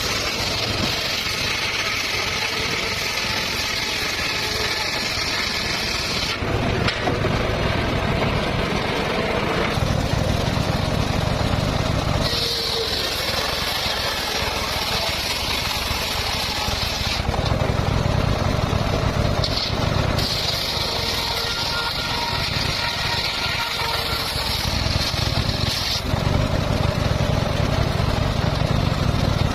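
A motor-driven circular saw runs steadily. Three times it makes a high-pitched cutting whine as the blade goes through wood, and between the cuts the lower hum of the saw's drive carries on.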